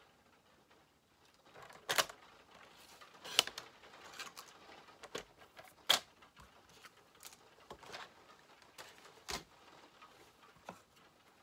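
Paper and craft tools being handled on a tabletop: four sharp clicks spread over several seconds, with fainter taps between.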